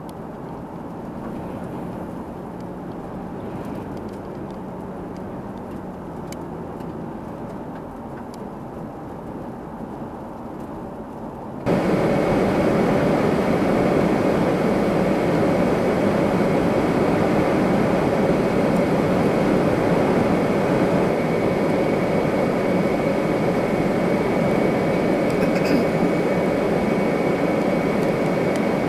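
Steady rush of wind and road noise inside a moving car buffeted by strong thunderstorm outflow winds. About twelve seconds in it jumps suddenly to a much louder, denser rush.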